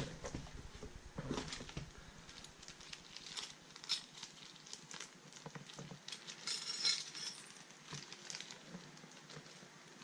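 Scattered light clicks, taps and clinks as the multi-tool and its accessories and packaging are handled, with a sharp click right at the start and a brief rustle about seven seconds in.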